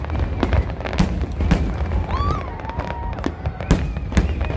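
Fireworks display going off: an irregular string of sharp bangs and crackles, several a second, over a constant low rumble, with a short wavering whistle-like tone about two seconds in.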